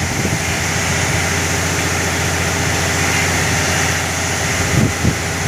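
A heavy engine running steadily with a fast low beat, over a loud rushing hiss of water gushing from a freshly drilled borewell.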